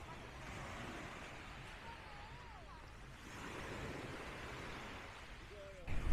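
Small waves washing onto a beach, swelling in twice, with a faint distant voice. Just before the end a sudden, much louder low rumble starts.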